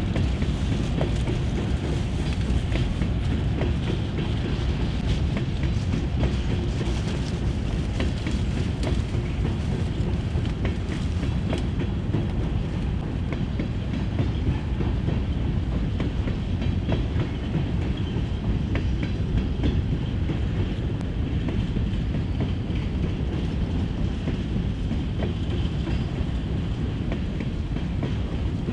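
Empty covered hopper cars of a freight train rolling past: a steady low rumble of steel wheels on the rails, with a continual clickety-clack of wheels clicking over the track.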